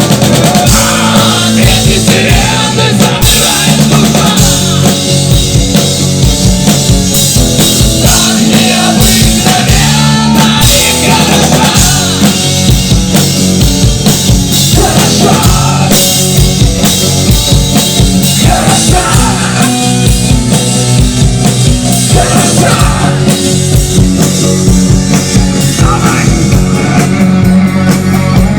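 Live rock band playing a loud instrumental passage: a steady drum-kit beat and bass under a wavering lead melody.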